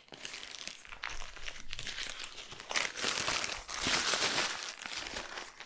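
Plastic mailer bag crinkling and rustling as hands pull it off a long parcel and crumple it, in uneven surges that grow louder in the second half.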